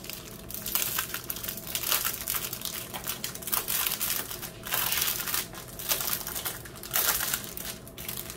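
Small plastic bags of loose rhinestone drills crinkling and rustling irregularly as a strip of them is handled and turned over.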